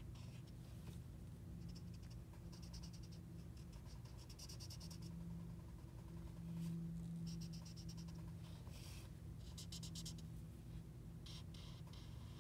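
Blue Prismacolor marker scribbling on paper in quick back-and-forth strokes, colouring in a filled area. It comes in several bursts of a couple of seconds each, over a steady low hum.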